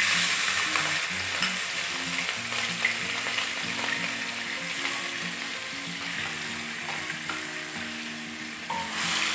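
Salted dried anchovies (teri Medan) frying in hot oil in a wok: a steady sizzle, loudest as they first go in and easing a little as they settle.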